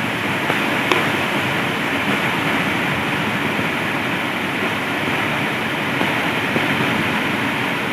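Heavy rain pouring down in a steady rush, with one brief click about a second in.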